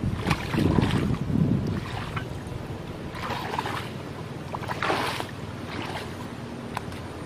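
Water splashing and sloshing in a shallow muddy ditch as someone works in it by hand, with wind buffeting the microphone. There are two short, rougher bursts of splashing a few seconds in.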